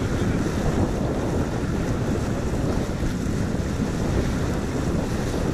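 Wind buffeting the microphone over water rushing along the hull of a J/111 racing sailboat under way, as a steady low rumble.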